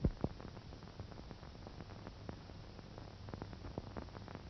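Old optical film soundtrack noise between narration lines: a steady faint hiss and low hum, dotted with irregular crackles and clicks, with one louder pop just after the start.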